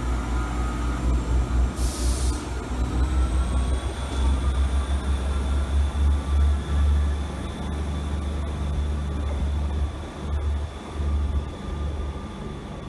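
Class 158 diesel multiple unit pulling away, its diesel engines giving a low rumble with a faint high whine that rises and then holds. A short air hiss comes about two seconds in, and the engine sound eases after about seven seconds as the train draws off.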